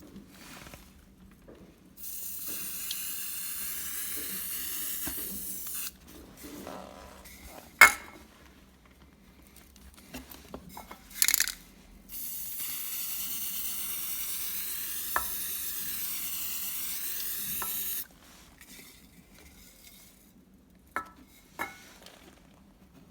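Steady hiss of an aerosol spray can spraying in two long bursts of about four and five seconds, with a few sharp clicks and knocks in between and near the end.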